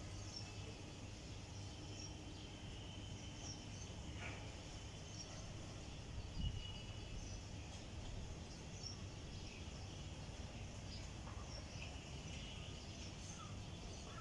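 Outdoor garden background: a steady low rumble with faint, short high chirps repeating every second or so, and a few brief falling chirps near the end. A single soft thump comes about halfway through.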